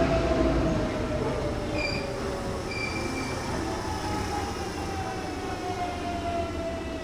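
Hanshin electric train's motors whining, the tone falling slowly in pitch as the train slows, over a steady rail rumble. Brief high wheel squeals come about two and three seconds in.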